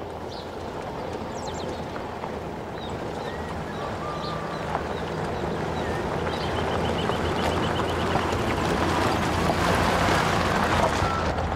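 A four-wheel-drive SUV driving on a gravel road, its engine hum and tyre crunch on the gravel growing steadily louder as it approaches and passes close by about ten seconds in.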